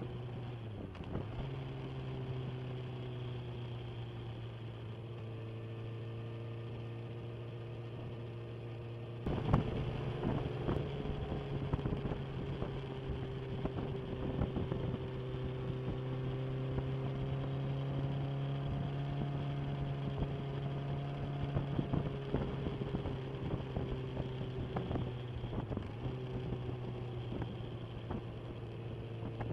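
Inline-four sport motorcycle engine running at steady, nearly constant revs while riding, its pitch dipping briefly about a second in and again near the end. About nine seconds in, a louder rushing noise with crackles joins it.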